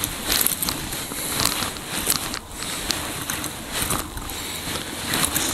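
Irregular rustling and crackling handling noise close to the microphone: a fly angler's jacket and fly line being handled as the line is gathered in for the next cast.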